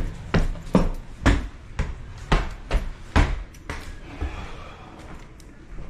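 Footsteps climbing a flight of stairs, a firm thump about twice a second, fading away after about four seconds.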